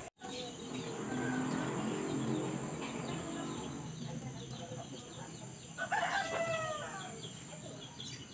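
A rooster crowing, with its clearest crow about six seconds in, over a steady high-pitched whine.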